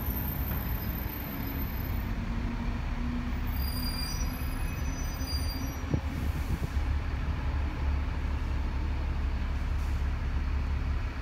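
Electric passenger train running away along the line, a steady low rumble, with thin high wheel-on-rail squealing tones from about three and a half to six seconds in.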